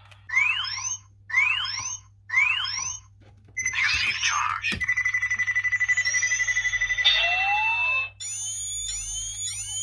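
Electronic sound effects and tune from a Kamen Rider Faiz replica toy accessory's speaker: three short rising chirps, a burst of noise, a steady tone pulsing rapidly, then sustained tones with repeated rising sweeps.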